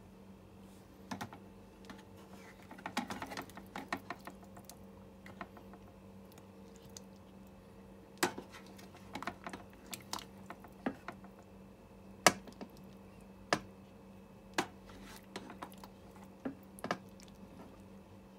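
Serving ladle knocking and scraping against the rice cooker's inner pot and the plate while stewed vegetables and ground lamb are dished up: scattered sharp clicks, the loudest about twelve seconds in, over a steady low hum.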